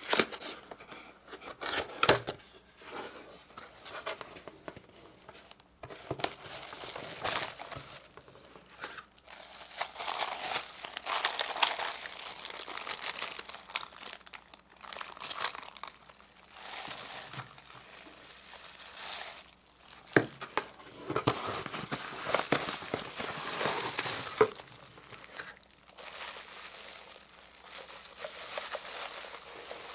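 A cardboard box being opened, with a couple of sharp snaps near the start. Then clear plastic bags crinkle and rustle in irregular stretches as bagged plastic parts are lifted out and handled, with an occasional sharp click.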